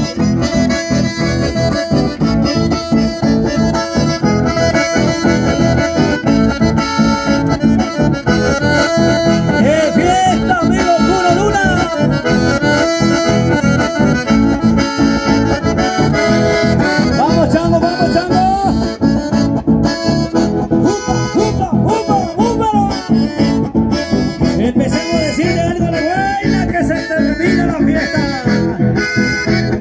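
Live chamamé music led by diatonic button accordions over strummed acoustic guitars, with a steady dance beat.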